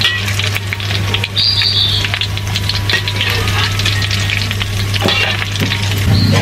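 Hot oil sizzling and crackling around flour-battered chicken deep-frying in a wok, with a wire spider strainer and metal spatula scraping against the wok as the cooked pieces are lifted out.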